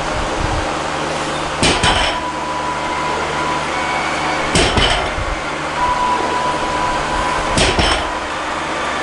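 A 140 kg barbell loaded with rubber bumper plates touching down on the lifting platform three times, about three seconds apart, each touchdown a quick double knock and rattle as the plates land and the bar settles.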